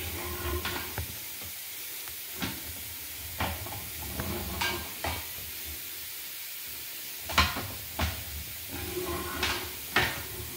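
Scattered sharp clicks and knocks, about one every second or two, over a faint steady hiss.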